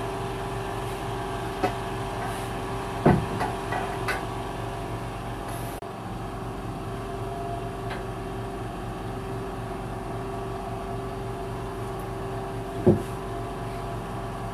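Steady mechanical room hum with a constant tone, like an air conditioner, broken by a few scattered knocks and thumps; a louder knock near the end as the phone is handled.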